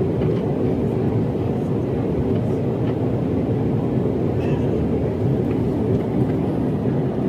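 Steady engine and airflow noise heard inside an airplane's cabin as it climbs after takeoff, a constant low rumble.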